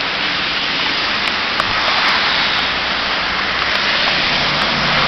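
Heavy hurricane rain driven by strong wind at full force: a steady, even rushing hiss.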